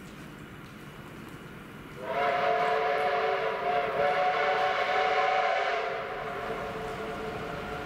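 Approaching train's whistle sounding one long chord of several notes for about four seconds, starting about two seconds in, over a low rumble.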